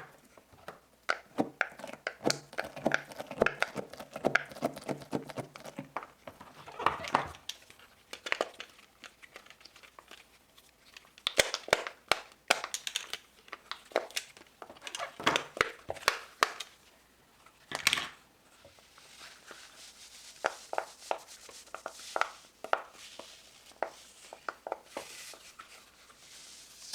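Plastic wrapping crinkling and rustling while silicone fidget toys are handled, with irregular sharp clicks and taps, busiest in the first seven seconds and again around the middle.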